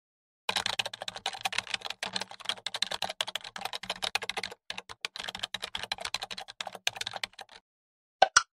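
Computer keyboard typing sound effect: a rapid run of key clicks for about seven seconds, then two sharper keystrokes near the end.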